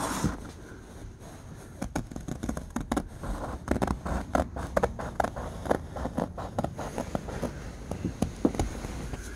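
Scissors snipping through canvas tent fabric in a quick, uneven run of short cuts, starting about two seconds in, as the edge of a round hole is trimmed.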